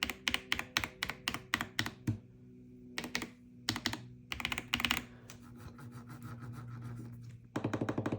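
Tecware Ghost 75% mechanical keyboard with linear switches being typed on: a quick run of keystrokes at about five a second, a pause, scattered clusters of keys, then a rapid flurry of keystrokes near the end.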